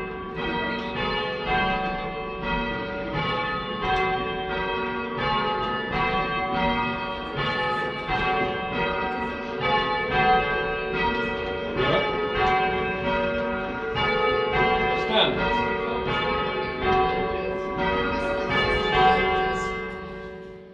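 Ring of three church tower bells, cast by Taylors of Loughborough in 1925, being rung in sequence, each stroke ringing on into the next. The sound fades away near the end.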